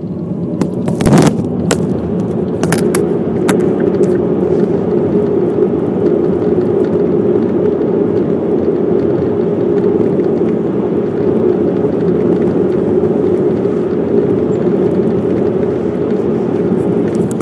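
Steady rumble of a 2010 Mazda 3 heard inside the car, with sharp ticking clicks over it. Several come in the first few seconds, the loudest about a second in, and fainter ones follow. The clicks are the windshield ticking-rattle, which the owner is having fixed with a replacement windshield from Mazda.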